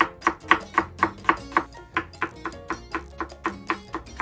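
Kitchen knife finely mincing an onion on a cutting board: quick, regular chops about four a second. Background music with a plucked guitar plays underneath.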